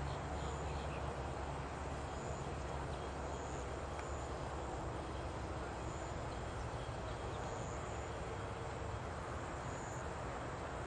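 Steady outdoor background noise: a low rumble under an even hiss, easing slightly after the first second, with faint high chirps recurring every second or so.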